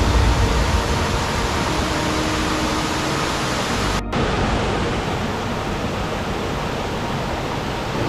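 Steady rush of a mountain stream's flowing water, even and unbroken apart from a sudden brief dropout about four seconds in.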